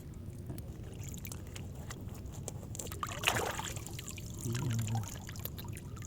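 Water pouring and trickling, with one louder splash about three seconds in.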